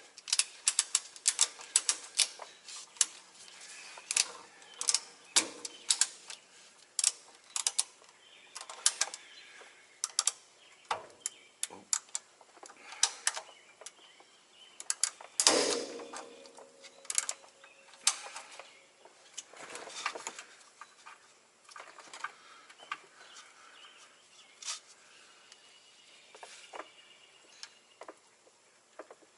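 Irregular metallic clicks, taps and knocks of tools and parts being handled while fitting a semi-truck transmission, with one louder metal clank about halfway through that rings briefly.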